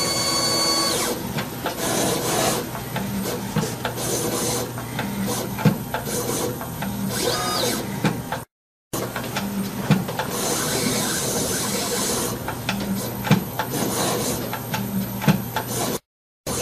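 Roland EGX-30A desktop engraver scribing a metal nameplate with its diamond drag cutter: a steady whine for about the first second, then a continuous scratching of the diamond tip on metal, dotted with small clicks and short whirs of the axis motors.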